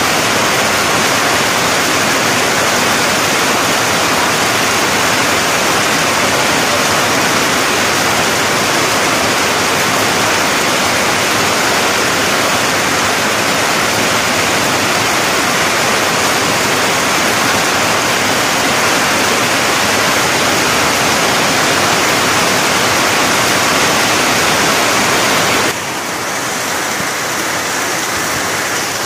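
Heavy storm rain falling on tree foliage: a steady, dense hiss. About 26 seconds in it steps abruptly to a slightly quieter, softer rain.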